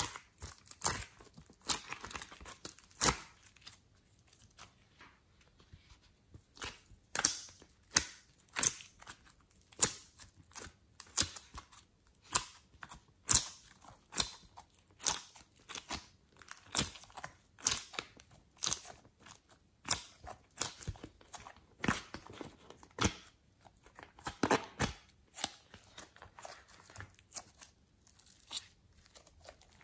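Hands working clay and slime out of plastic molds: irregular sharp clicks and crackles, about one or two a second.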